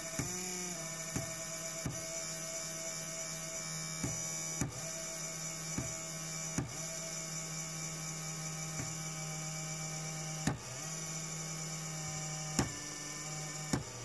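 Failing hot-end cooling fan on a Creality Ender 3 3D printer running with a vibrating hum, its pitch wavering as the fan changes speed. It is tapped by a finger every second or so, and each tap is a sharp click that sometimes nudges the hum's pitch.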